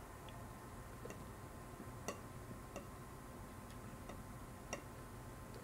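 Metal fork clicking lightly against a plate while eating, about seven sharp, irregular clicks over a few seconds.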